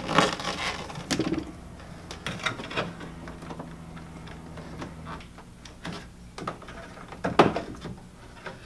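Corrugated plastic defroster duct hose being pushed and worked by hand onto a dash vent outlet: irregular rustling, scraping and clicks, the sharpest just after the start and about seven seconds in, over a low steady hum.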